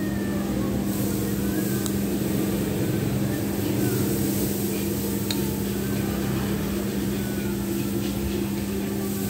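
A steady low mechanical hum, with two light clinks of metal cutlery against a plate, about two and five seconds in.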